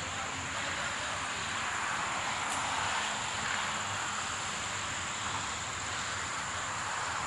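Motorway traffic passing at a distance: a steady wash of tyre and engine noise that swells and eases as cars go by.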